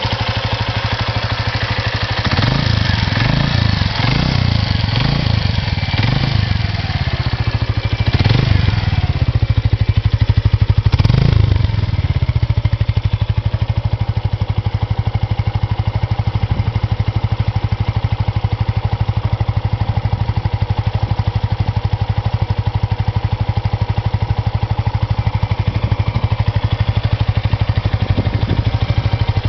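Suzuki Volty's air-cooled single-cylinder four-stroke engine running: a handful of quick throttle blips in the first dozen seconds, then a steady idle.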